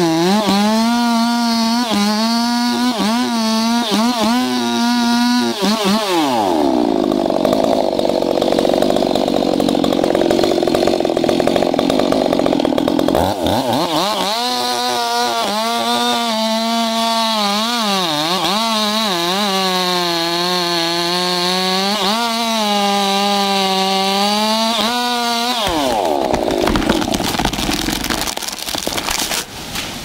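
Chainsaw cutting into the trunk of a very large tree, the engine at high revs with its pitch wavering as the chain bites. Its pitch falls back to idle about six seconds in. It revs up and cuts again from about thirteen seconds until near the end, then drops back down.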